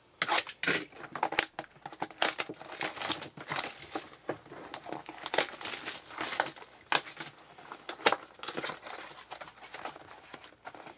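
Crinkling and tearing of wrapping as a sealed box of trading cards is opened, a steady run of irregular crackles.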